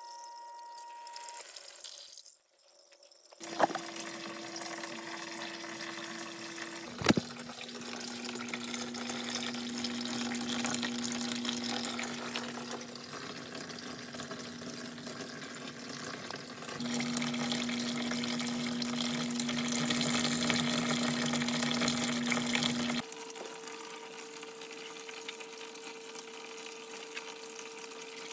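Water running and trickling through the PVC grow channels of a homemade hydroponic system, over a steady hum from the system's pump. The level jumps sharply several times, and there are two short knocks in the first seven seconds.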